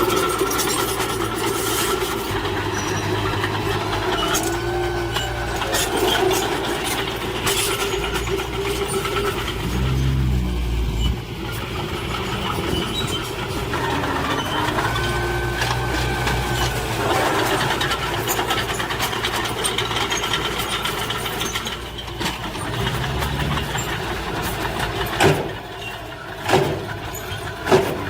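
Diesel engines of heavy earthmoving machinery running under load, the engine note rising and falling, with a squealing whine at times and a few sharp knocks near the end.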